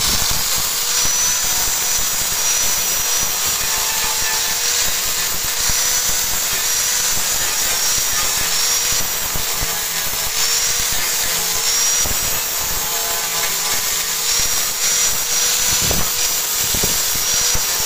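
Electric angle grinder with a sanding disc running steadily against a car body panel, grinding the paint down to bare steel. A steady motor tone sounds over the rasp of the disc on the metal.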